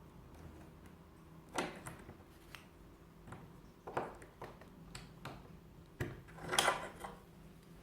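Small metal clicks and scrapes of a tool working tiny brass nails out of the plates of an old rim lock: a handful of separate sharp ticks, with a longer scraping rattle about six and a half seconds in.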